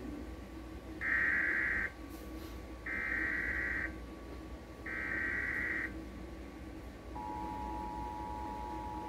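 Emergency Alert System tones for a severe thunderstorm warning, played through a TV speaker. First come three short bursts of data tones, the SAME header, about a second apart. Then, about seven seconds in, the steady two-tone attention signal begins.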